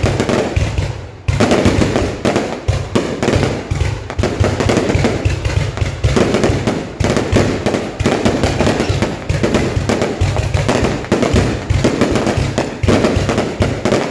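Aerial fireworks display firing a rapid, unbroken barrage of explosions, several bangs a second with deep booms.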